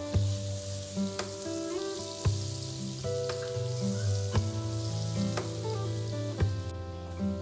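Butter melting in hot olive oil in a frying pan, sizzling steadily, over background music.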